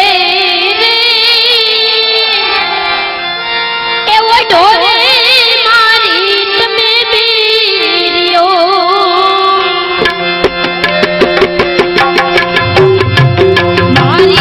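A Gujarati folk song sung live by a boy into a microphone over melodic instrumental accompaniment, the melody moving in long, wavering held notes. About ten seconds in, a fast, steady drum rhythm comes in.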